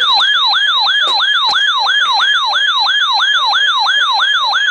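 A weather radio's alert siren, a RadioShack 12-993 receiving a severe thunderstorm watch. It makes a rapid, repeating falling whoop, about three and a half sweeps a second, the signal that an alert has come in.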